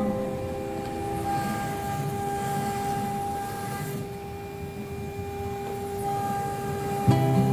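CNC router spindle running with a steady high whine over a continuous hiss of cutting noise.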